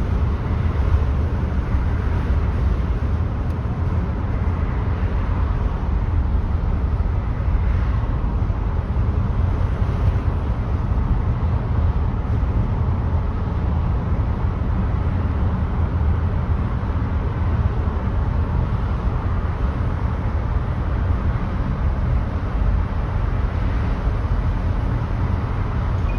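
Volvo car driving with aero roof bars fitted: steady road and wind noise, mostly a low rumble, with no distinct whistle or tone standing out.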